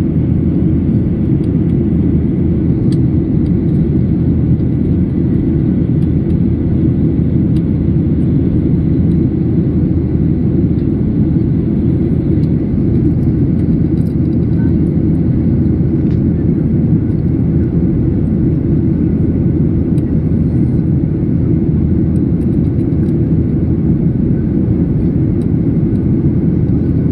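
Cabin noise of a Boeing 737-800 climbing after takeoff: a steady, low roar of its CFM56-7B turbofan engines and the air rushing past the fuselage, heard from inside the cabin by a window over the wing.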